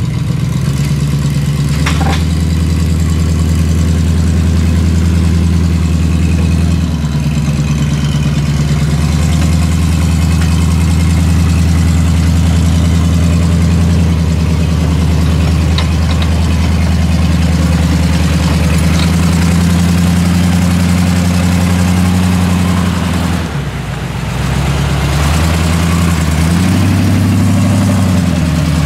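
Off-road tow truck's engine running at low revs under load as it tows a Ford Bronco on its wheel-lift, the revs stepping up and down several times, with a brief drop a little over 20 seconds in.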